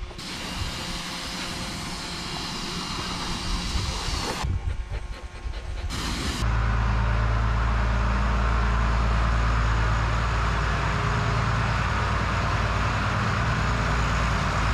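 A steady hiss for the first few seconds. Then, from about six seconds in, an International 686 tractor's engine running steadily at low speed as the tractor is driven slowly.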